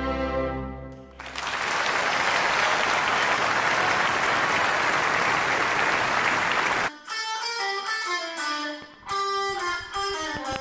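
A held orchestral chord ends about a second in, followed by applause for about five seconds; then a guitar starts playing picked notes.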